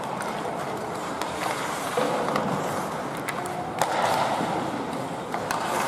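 Ice hockey play on an indoor rink: skate blades scraping the ice over a steady background noise, with several sharp clacks of sticks and puck.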